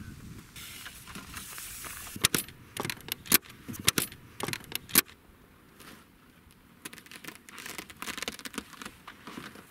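Latch clips on a James Baroud hard-shell rooftop tent being undone by hand: a run of sharp metallic clicks and clacks over about three seconds, then lighter ticks and rattles near the end.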